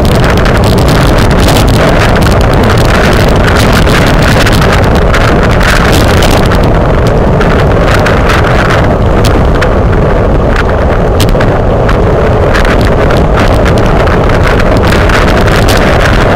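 Constant loud wind noise buffeting the microphone of a camera riding on a road bicycle at race speed, with many small ticks scattered through it.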